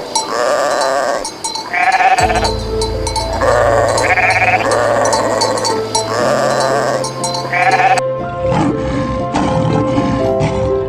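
Sheep bleating over and over, one wavering call about every second or so, over background music; about eight seconds in the bleating stops and only the music goes on.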